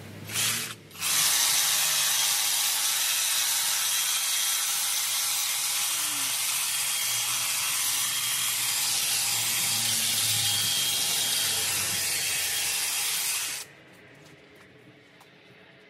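Honda HHH36AXB battery hedge trimmer: a short blip of the motor, then the motor and reciprocating blades run steadily while cutting the hedge, stopping abruptly near the end.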